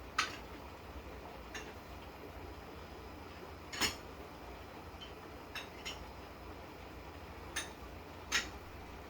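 Kitchen dishes and utensils being handled: about seven scattered sharp clinks and knocks, the loudest about four seconds in and near the end, over a steady low hum.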